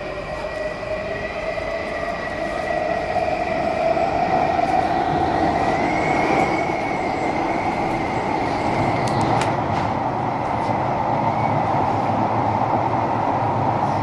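Singapore MRT train running, heard from inside the carriage. The motor whine glides upward and grows louder over the first few seconds as the train speeds up, then settles into steady running noise with a few faint clicks.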